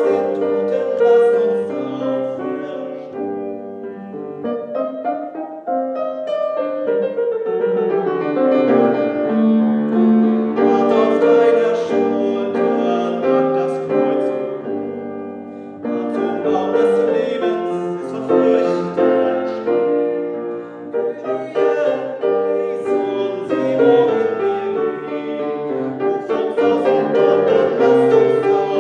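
Grand piano playing a slow hymn, with a man's voice singing the verses of a German Kyrie song over it.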